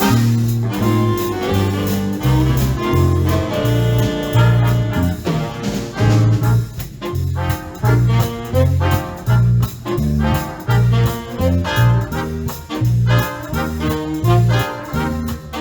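Live big band playing an up-tempo swing instrumental: trumpets, trombones and saxophones over a steady bass line pulsing about two notes a second.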